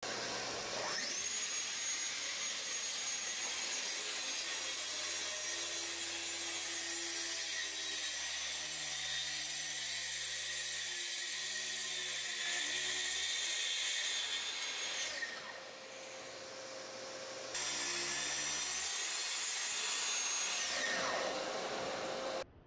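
Festool TSC 55 cordless track saw with a 48-tooth crosscut blade spinning up to a high whine and cutting along a 2-inch-thick honey locust slab, the blade biting steadily into the hard wood. The whine falls off near the end as the saw winds down.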